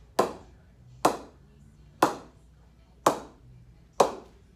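Face of an English willow cricket bat struck five times at a steady pace of about one knock a second, each a sharp knock with a short ringing decay: tapping to test the face, which feels a bit soft and will need more knocking in.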